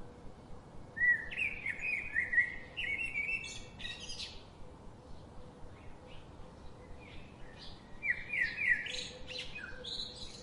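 A songbird singing two bursts of rapid, sliding chirps, one about a second in and another near the end.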